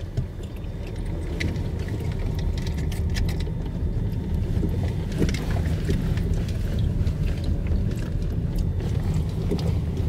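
Car driving on a rough unpaved gravel road, heard from inside the cabin: a steady low rumble of engine and tyres, with frequent small clicks and rattles over the stones.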